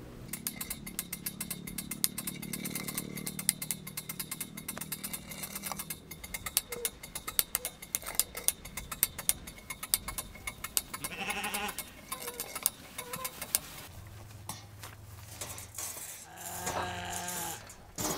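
Hand-cranked winch clicking rapidly as it lowers a whole lamb into a pit oven. In the second half come a few short animal calls, and a metal clank near the end as a steel lid is set over the pit.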